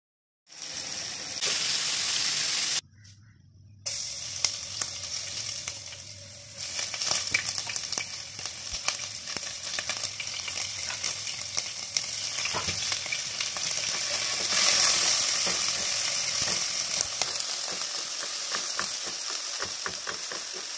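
Hot oil sizzling in a nonstick pot as chopped seasonings fry, with the clicks and scrapes of a spatula stirring them. The sizzle drops away briefly about three seconds in, then carries on.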